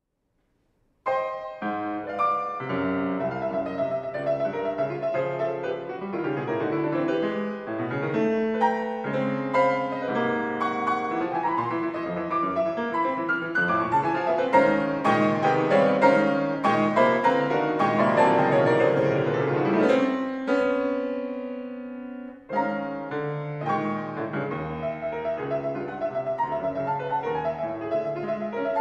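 Solo piano playing quick, busy figures. About twenty seconds in they break off into a held chord that dies away, and then the quick figures start again.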